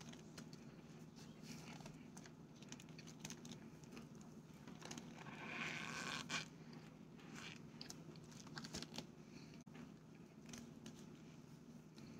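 Packed cornstarch chunks being bitten and chewed: a run of soft, squeaky crunches and crackles, with the loudest bite about six seconds in. A steady low hum lies underneath.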